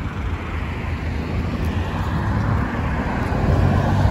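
Road traffic: cars passing on a multi-lane street, a steady tyre and engine rumble that grows louder near the end as a vehicle passes close by.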